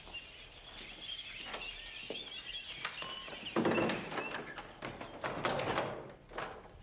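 Old heavy wooden door shutting with a dull thunk about three and a half seconds in, and another knock a couple of seconds later, over birds chirping.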